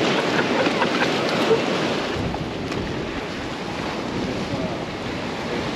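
Ocean surf washing against shoreline rocks, a steady rushing, with wind buffeting the microphone.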